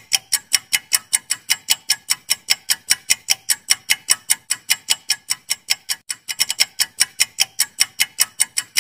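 Ticking clock sound effect for a quiz countdown timer: rapid, even ticks at about five a second.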